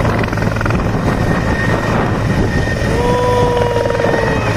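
Helicopter lifting off and climbing away overhead, its rotor and turbines running loud and steady. A high steady whine runs through it, and a lower tone joins about three seconds in, sliding slightly down.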